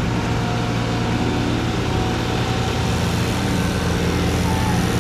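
Riding lawn mower engines running steadily as the mowers drive slowly across the driveway.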